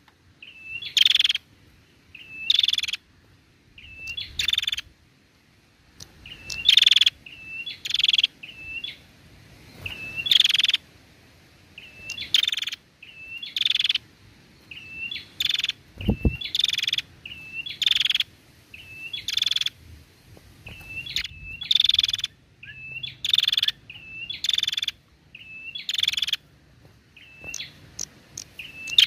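Female prenjak calling in a steady, repeated series, about one call a second: each a short hooked note followed by a louder, harsh burst. A single low knock about halfway through.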